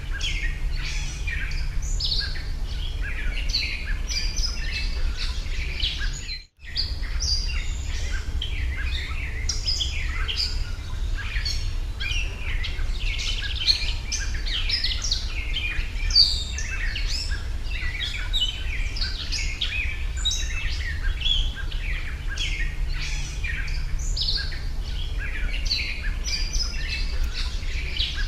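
Many small birds chirping busily over a steady low rumble, with a brief cut to silence about six seconds in.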